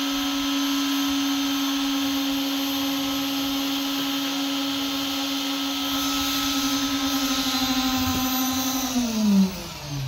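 Concrete needle vibrator's motor running at a steady high hum while the column concrete is compacted, then switched off about nine seconds in, its pitch falling quickly as it spins down.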